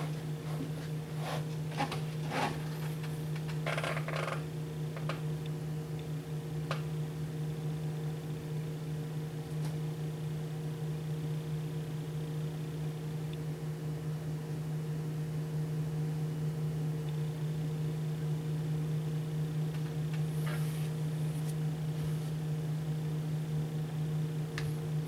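A steady machine hum, with a few clicks and knocks in the first few seconds and a short hiss about twenty seconds in.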